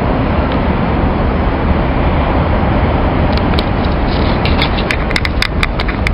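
Steady rushing hum of road traffic on the busy roads below, with a run of sharp clicks from about three and a half seconds in.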